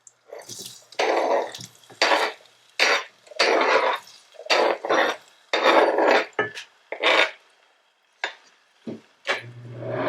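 A cooking utensil scraping against a pan or bowl in about eight separate strokes of roughly half a second each, with short pauses between them.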